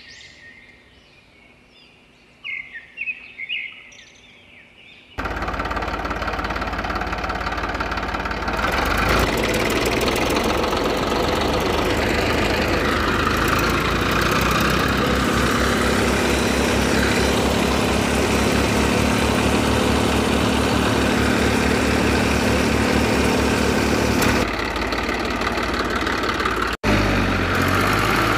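A few faint bird chirps. Then, about five seconds in, a loud tractor engine sound starts abruptly and runs steadily, with a brief cut near the end.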